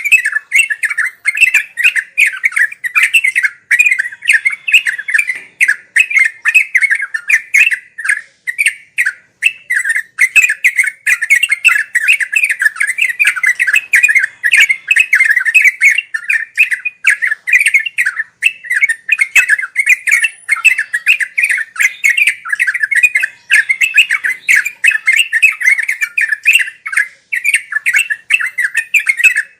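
Yellow-vented bulbul (trucuk) singing a fast, unbroken run of bubbly chattering notes.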